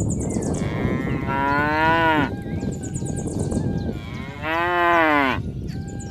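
Bovine lowing: two long moos about three seconds apart, each drawn out and dropping in pitch at the end, over a low rumble, with faint high chirping between them.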